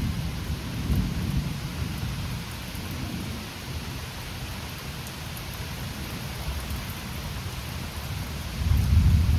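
Heavy thunderstorm rain falling steadily. A low thunder rumble fades out at the start, and another rumble swells near the end.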